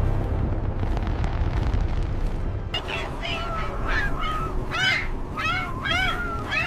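A low, steady wind-like noise. About three seconds in, a run of short squawking bird calls starts, roughly one a second, each rising and falling in pitch.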